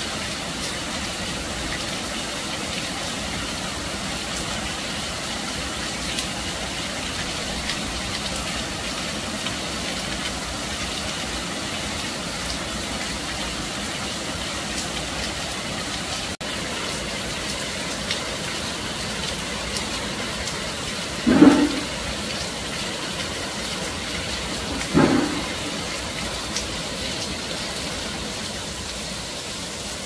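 Steady rain falling, an even hiss with scattered faint drip ticks. Two short, louder low sounds stand out late on, a few seconds apart.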